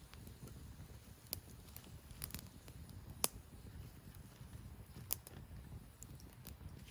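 Wood campfire crackling, with a handful of sharp pops, the loudest about three seconds in, over a low steady rumble.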